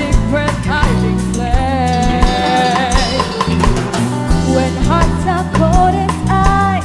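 Band music with drum kit and bass under a wavering sung melody line.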